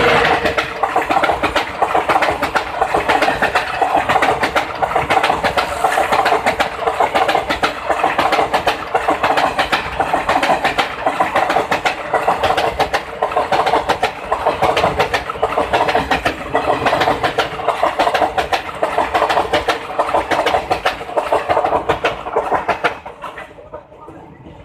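Indian Railways train running past, its wheels clattering rapidly and steadily over the rail joints with a steady hum underneath. The clatter fades away sharply near the end as the train clears.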